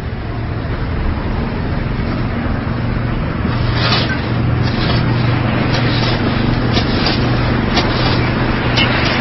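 Propeller engines of a twin-engine flying boat running as it skims across the water, a steady drone that grows louder from about three and a half seconds in, over a rushing hiss of water, with short sharp sounds scattered through the second half.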